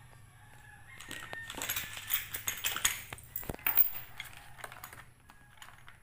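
Crinkling and clicking of a clear plastic blister pack being handled and pulled open to free a padlock, busiest in the middle few seconds.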